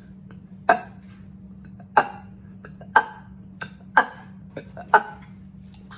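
A person burping on command: five short, sharp burps about a second apart, with a few fainter ones in between, over a steady low hum.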